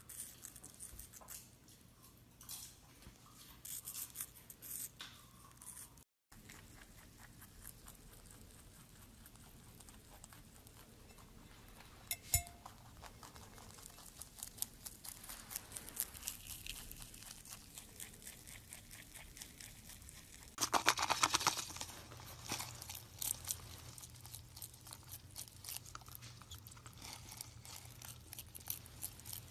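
Close-up chewing and crunching of small pets eating: a conure biting into apple, a rabbit munching kale, and a bearded dragon crunching insects, with a louder burst of crunching about two-thirds of the way through.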